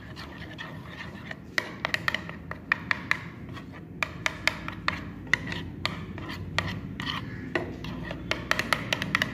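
Metal spoon stirring thick yogurt in a bowl: wet scraping, with irregular sharp clicks as the spoon hits the bowl's sides. The clicks bunch together near the start and near the end.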